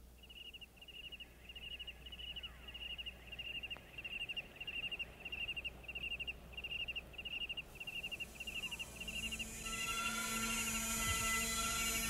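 Cricket chirping on a vinyl record, a steady pulsed chirp about two to three times a second. About eight seconds in, a hiss rises, and a sustained drone of several steady pitches swells in and grows louder.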